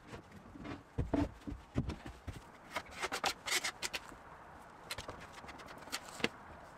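A few dull knocks of plywood being handled and set down, then a metal spatula scraping in a tin and smearing thick black paste over a plywood surface in short scratchy strokes.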